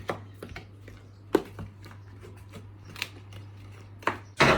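A spoon stirring seasoned flour in a bowl: irregular scrapes and taps against the bowl, with a louder clatter near the end.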